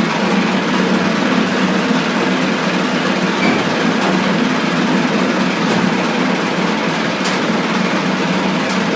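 Massey Ferguson 375 tractor's diesel engine running steadily, with a few faint ticks in the last two seconds.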